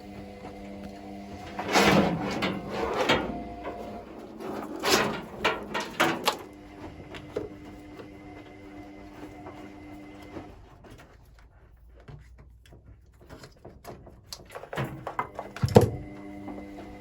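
Clattering knocks and bangs of parts being handled on a washing machine, in bursts, over a steady hum that stops about ten seconds in and comes back near the end.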